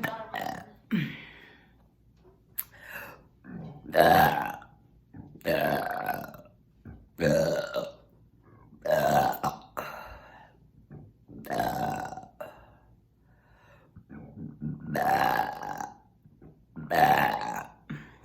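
A person burping loudly over and over: about ten deliberate, drawn-out burps, one every one to two seconds.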